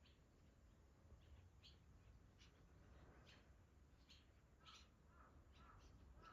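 Faint, rapid short chirps of barn swallows around their nest, coming thick through the whole stretch, with a few lower, fuller calls joining in the second half.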